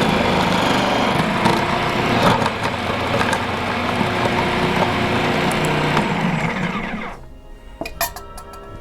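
Electric kitchen food-processing appliance running steadily, chopping the purple carrots for a raw cake filling. It switches off abruptly about seven seconds in, followed by a few sharp clinks.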